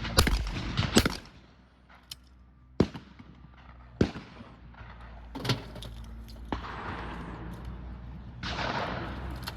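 Shotgun shots: two loud ones in quick succession right at the start, single shots about 3 and 4 seconds in, then fainter ones, with a spell of rushing noise near the end.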